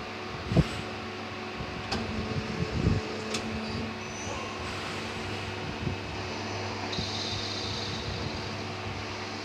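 CNC lathe running with a steady machine hum, with a few knocks in the first three seconds and a high-pitched sound joining about seven seconds in.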